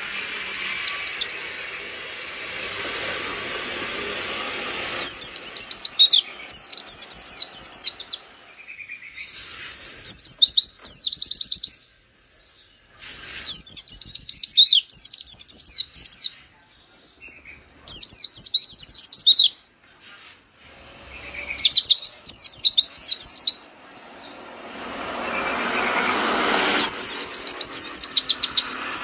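White-eye (pleci) singing in rapid-fire bursts of high, quick down-sweeping chirps, each burst a second or two long and repeated every couple of seconds. A rushing background noise swells and fades near the end.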